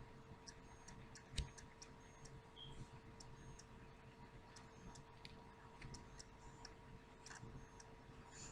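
Near silence: quiet room tone with a faint steady hum and scattered small, irregular clicks, one sharper click about a second and a half in.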